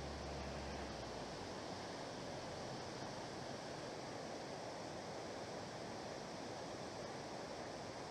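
Steady rushing of a tall waterfall: water released over a hydroelectric plant's spillway, falling about 190 metres into the river below.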